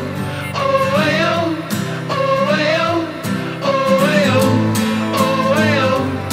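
Background music: a song with a sung melody.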